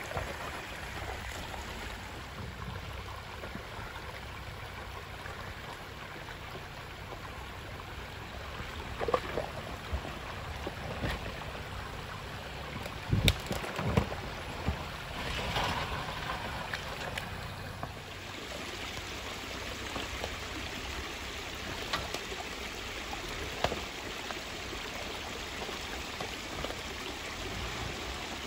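Water trickling along a rocky trail rut, with the low running of a 2021 Jeep Gladiator Willys crawling slowly over it. Scattered knocks of its tyres on the rocks come and go, the loudest a few clunks about halfway through.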